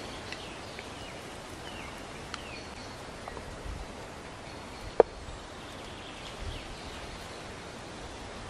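Quiet forest ambience with scattered short bird chirps and a few soft handling knocks. A single sharp click about five seconds in is the loudest sound.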